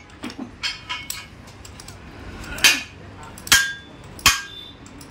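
Hammer blows on steel truck leaf-spring blades during spring setting. A few light taps are followed by three heavy ringing strikes a little under a second apart in the second half.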